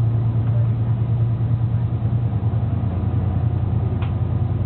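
Diesel engine of a 1960s Budd-built rail diesel car, heard from inside the car, running with a steady low drone as the car moves off slowly. A faint click comes about four seconds in.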